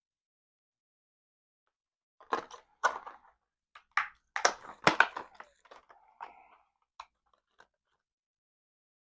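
Small metal parts of an AR-15 lower receiver clicking, knocking and scraping against each other as they are worked into place by hand: a cluster of sharp clicks over about five seconds after a quiet start.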